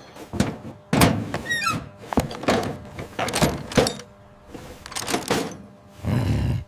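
A quick series of knocks and thuds, with a short whooshing rush near the end.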